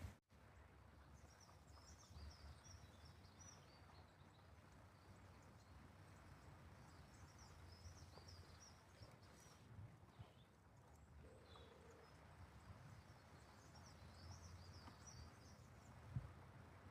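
Faint birdsong: small birds chirping in short, repeated high phrases that come and go, over a quiet outdoor background, with one soft knock near the end.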